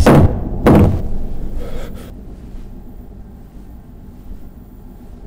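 Two loud, heavy thuds about three quarters of a second apart, each dying away in a low rumble.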